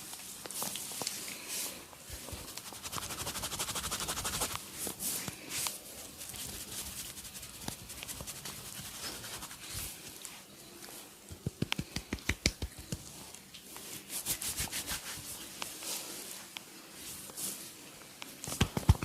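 A barber's hands massaging: scratchy rubbing over skin and hair, broken by runs of quick rhythmic slaps, about five a second, after about eleven seconds and again a little later.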